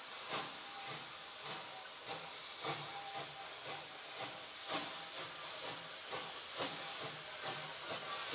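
Victorian Railways steam locomotive working a train, its exhaust chuffing about twice a second over a steady hiss of steam, growing a little louder as it approaches.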